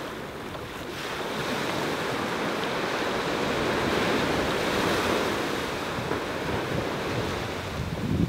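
Ocean surf on a beach: a wave swells to its loudest about halfway through and then washes back, with wind buffeting the microphone.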